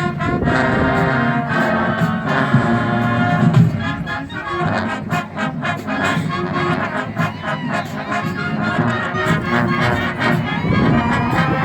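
Marching band playing its show, brass carrying the melody over drum strikes that grow denser about halfway through.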